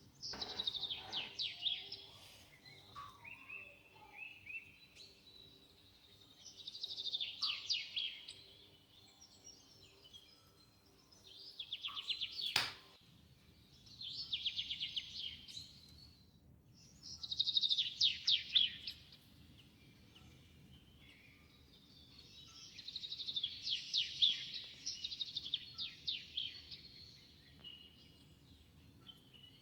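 A songbird singing short trilled phrases, each a second or two long, repeated every few seconds. A sharp click is heard about twelve seconds in.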